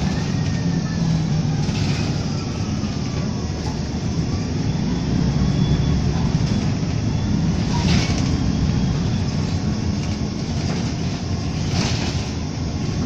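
City bus interior while driving: a steady low engine drone with road noise, and a couple of sharp rattling knocks from the bus body about eight and twelve seconds in.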